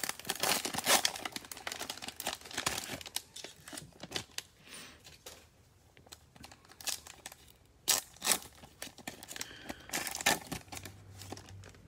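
Shiny plastic trading-card pack wrapper being torn open and crinkled by hand, with dense crackling for the first few seconds. Then come a few sparser sharp crinkles and rustles as the cards are slid out of the wrapper.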